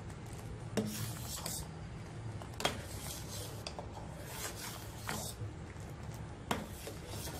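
Metal ladle scraping around the bottom and sides of a steel pot of milk as it is stirred, a rasping scrape about every two seconds.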